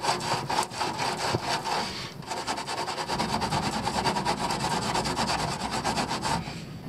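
Rapid, even back-and-forth scraping on the rusty steel of a car's fuel tank beside its strap clamp, rubbing off rust to find the pinhole that is leaking petrol. The scraping stops near the end.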